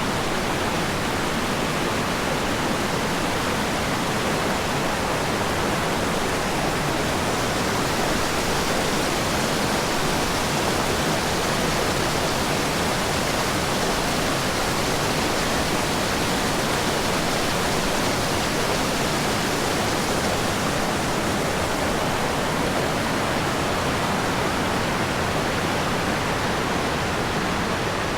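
A mountain creek rushing and splashing in a steady, unbroken roar of white water.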